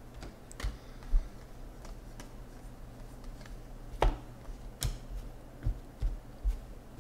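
Football trading cards being flicked off a stack and dropped onto piles by hand: about half a dozen light, separate taps and flicks of card on card, the sharpest about a second in.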